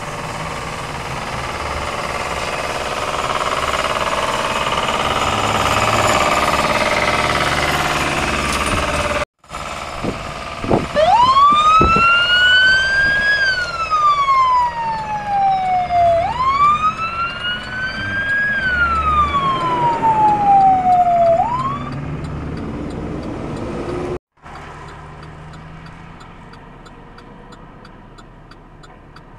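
Fire truck siren wailing through two slow cycles, each pitch rising quickly and then falling away slowly, as the truck passes close. Before it comes a steady rushing noise, and after it a quieter steady vehicle noise.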